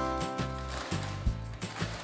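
Background music with a steady beat and a stepping bass line, with a cluster of chiming notes in the first second.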